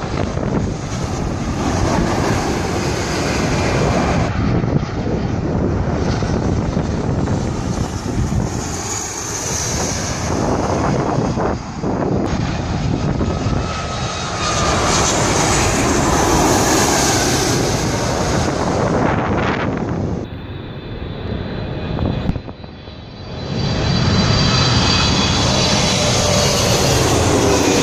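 Twin-engine jet airliners on final approach, passing low overhead one after another: each one's engine roar and high whine swells and fades as it goes over. The sound breaks off abruptly at cuts between clips.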